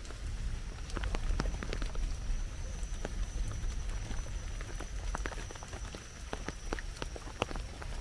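Footsteps on a trail: irregular crunches and taps over a steady low rumble, with a thin steady high tone from about a second in until near the end.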